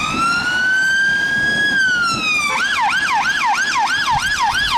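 Police car siren: one slow wail that rises and then falls, switching about halfway through to a fast yelp of about four sweeps a second.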